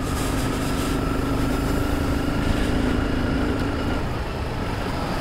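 Motorcycle engine running at a steady low speed under wind and road noise, heard from the rider's seat. Its steady hum drops away about four seconds in.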